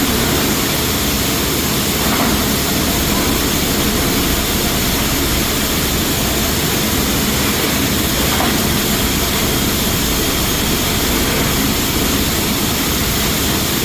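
Steady, loud running noise of rice mill machinery on an automatic bagging and palletizing line, with two faint knocks about two seconds and eight seconds in.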